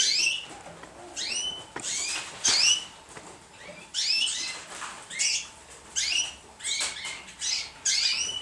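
Young pigeons (squeakers) peeping: a run of short, high-pitched calls, each sweeping down in pitch, repeated irregularly about one to two times a second.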